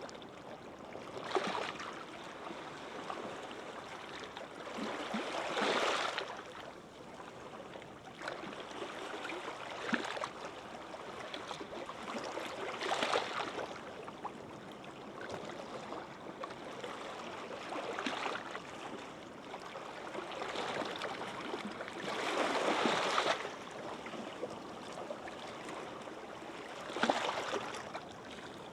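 Gentle sea waves washing onto a sandy beach: a steady hiss of surf with a wave breaking and sweeping up the shore every four to five seconds, one longer swell near the end.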